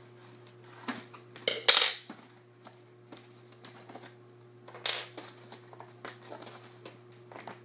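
Scissors and hands working at a cardboard box insert: scattered light clicks and taps, with brief louder scrapes of cardboard about one and a half seconds in and again about five seconds in.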